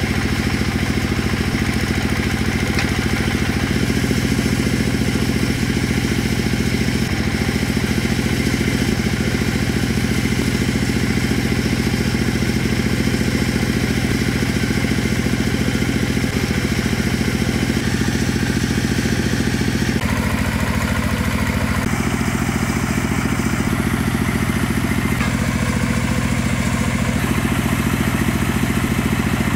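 Tractor engine powering a water-well drilling rig, running steadily while the rig's hydraulics pull drill pipes out of the well; its tone shifts in steps several times.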